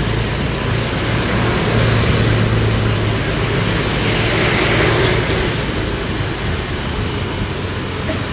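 Steady engine hum and road noise from a motor vehicle moving slowly in traffic. The noise swells briefly about halfway through, then eases.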